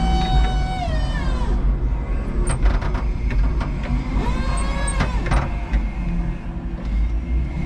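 A 5-ton electric forklift's electric motors whining, the pitch holding and then falling away about a second and a half in, then rising, holding and falling again between about four and five and a half seconds in. A steady low rumble runs underneath, with a few short clunks.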